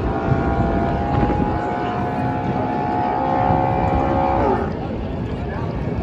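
A NASCAR race car's V8 engine is held at high revs during a burnout, its pitch creeping slowly upward. About four and a half seconds in, the revs drop off and the engine note falls away.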